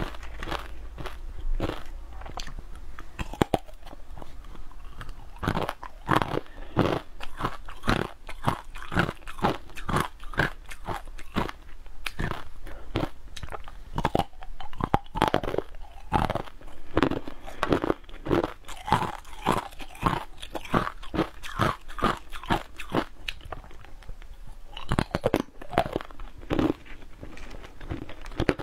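Biting and chewing a frozen block coated in green powder: a continuous run of crisp crunches, several a second, as the frozen food breaks between the teeth.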